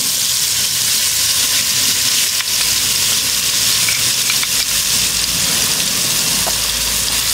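Wet spice masala of chilli, coriander, garam masala and turmeric powders mixed in water, poured into hot oil with fennel seeds in an aluminium pot and sizzling steadily as the water hits the oil.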